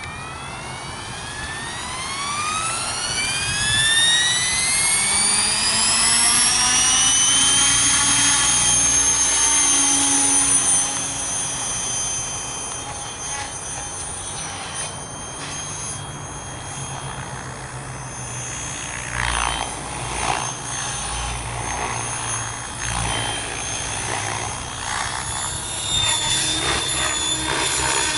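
Electric Logo 600 SE radio-controlled helicopter spooling up, its motor and rotor whine climbing steadily in pitch for about seven seconds until it reaches flying speed. It then holds a high steady whine with rotor noise that rises and falls as the helicopter flies and manoeuvres.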